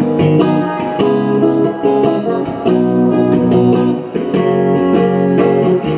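Guitar music: plucked notes and chords ringing over one another.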